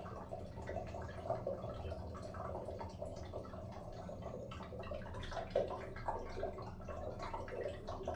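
Water dripping continuously in a bathroom: a dense, irregular patter of drops and small splashes with no pause.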